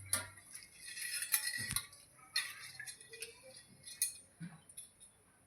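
Metal utensils clinking and knocking against a pan and dish in scattered light strikes, as freshly fried sev is lifted out of the hot oil.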